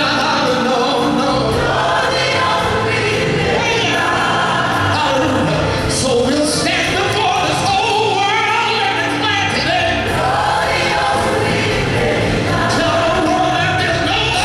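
A large gospel choir singing live, loud and continuous.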